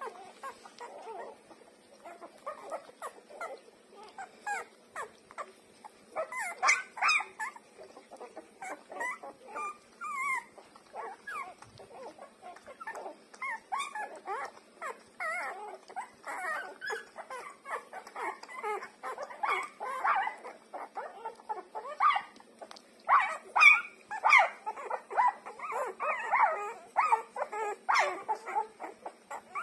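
Newborn puppies squeaking and whimpering in short, quick, pitch-bending cries while they nurse at their mother's teats, the cries coming almost without pause and getting louder about a third of the way in and again near the end.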